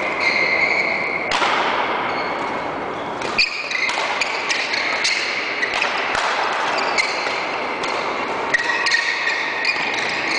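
Badminton rally: racquets repeatedly striking a shuttlecock with short sharp hits, with sports shoes squeaking on the court floor between strokes.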